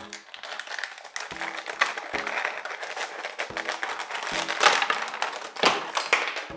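Clear plastic packaging crinkling and crackling as it is handled and pulled open, over quiet background music.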